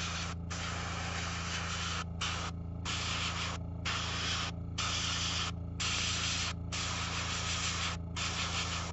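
Airbrush spraying a thin glaze, a steady hiss broken by short pauses about once a second, with a steady low hum underneath.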